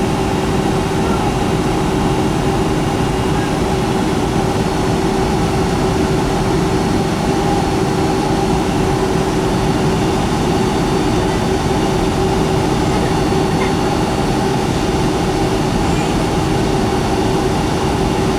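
Steady cabin noise of a Boeing 757-200 in flight, heard from inside the cabin: a constant rush of airflow and engine noise with a steady hum from its Pratt & Whitney PW2000 engines.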